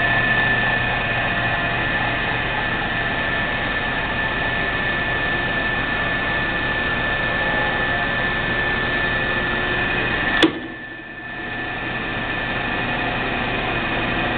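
Horizontal bandsaw's electric motor running steadily with a hum and a thin whine, then a sharp click about ten seconds in as the lowering saw frame trips its shut-off switch, and the running sound cuts off.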